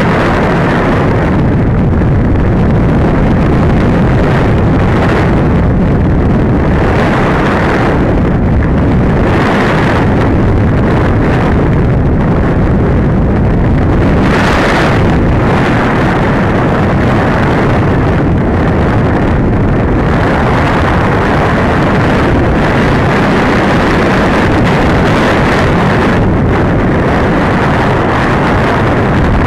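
Steady, loud rush of air over the onboard camera's microphone as a Masterline Preacherman RC glider flies; no motor tone is heard, and the noise swells and eases every few seconds.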